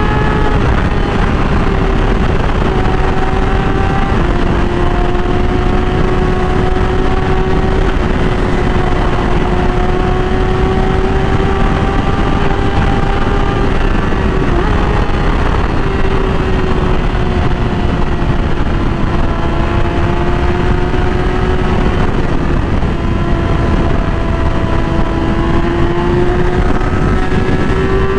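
Yamaha R6 inline-four engine running at a steady, high pitch that rises and falls only slightly as the bike cruises, with wind rush over the microphone.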